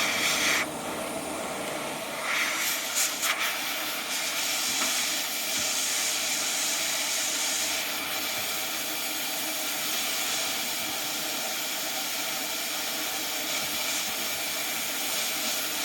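ATTEN ST-862D hot air rework station blowing a steady hiss of hot air from its handpiece nozzle while desoldering components from a circuit board. It is a little louder in the first moment, with a few faint clicks a couple of seconds in.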